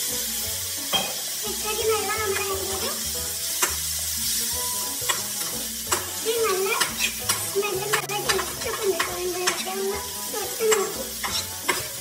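Food frying in a pan: a steady sizzle with sharp scrapes and taps of a utensil stirring it, about once or twice a second. Under it runs a wavering pitched sound.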